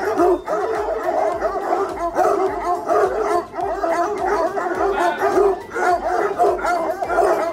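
A large pack of tricolour Anglo-French hounds barking all at once: many voices overlapping in a dense, unbroken chorus.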